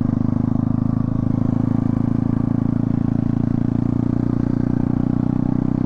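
Single-cylinder engine of a modified TVS Apache RTR 160 dirt bike running at a steady, even speed as the bike rides along.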